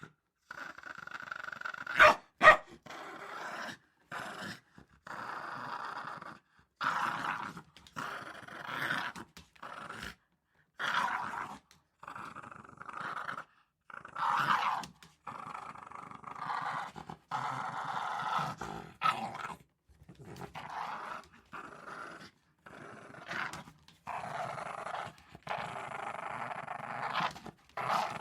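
Small dog play-growling in repeated rough runs of a second or two each, with two sharp, loud barks about two seconds in.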